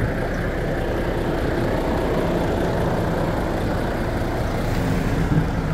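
Road traffic: a motor vehicle's engine running close by, with a steady low rumble.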